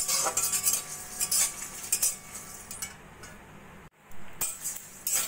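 A metal spatula scraping and tapping as it stirs whole spices dry-roasting in a metal wok. It is busiest in the first two seconds, breaks off briefly about four seconds in, then goes on.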